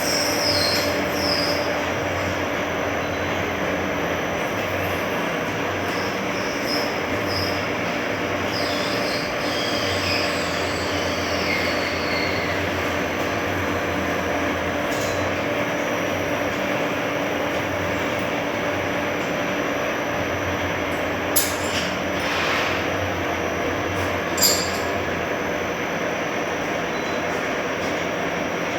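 A semi-automatic perfume bottle valve crimping machine running with a steady mechanical noise and a low hum. High squealing glides come and go during the first dozen seconds. Near the end there are two sharp clacks about three seconds apart, with a short hiss between them.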